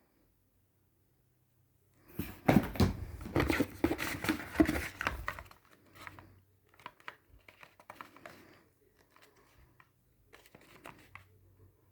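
Packaging being crinkled and torn open by hand. Silent for about two seconds, then a loud burst of rustling and ripping lasting a few seconds, followed by quieter, scattered crinkles.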